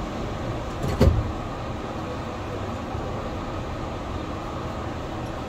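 Yurikamome train, a rubber-tyred automated guideway transit car, running with a steady rumble. A single sharp knock sounds about a second in.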